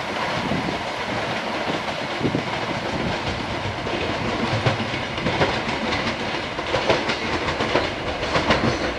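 Siemens Desiro ES1 'Lastochka' electric train, two coupled sets, pulling away and running steadily. Its wheels click over the rail joints and points, with several sharper clicks in the second half.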